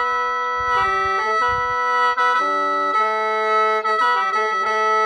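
Khaen, the bamboo free-reed mouth organ of Laos and Isan, played solo in lai noi: several reeds sound together in shifting chords over a steady high drone.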